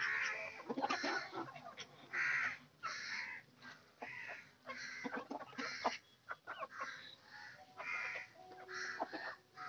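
A flock of free-range desi chickens and ducks calling as they forage: short, harsh calls come about once or twice a second amid clucking, with scattered small clicks.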